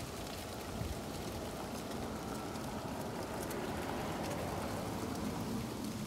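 Strong gusty wind rushing over and buffeting the microphone: a steady noise with uneven low rumbles.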